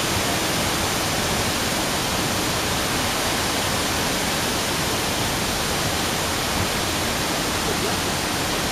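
Water blasting from a dam's outlet conduit during a release, a steady, unbroken rushing noise of the falling jet and its spray.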